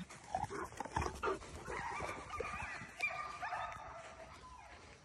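Cane Corso vocalising during play over a stick: short yips and grunts in the first second or so, then a drawn-out whine lasting about two seconds.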